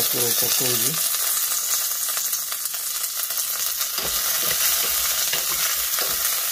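Fresh curry leaves sizzling and spattering in hot olive oil with mustard seeds and lentils in a stainless steel pan: the tempering (tadka) stage. From about four seconds in, a wooden spatula stirs and knocks against the pan.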